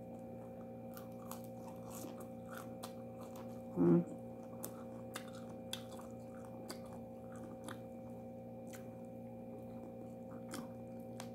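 A person chewing fresh gerger (arugula) leaves and fish, with many small wet mouth clicks, over a steady low hum. A short voiced sound from the eater, the loudest moment, comes about four seconds in.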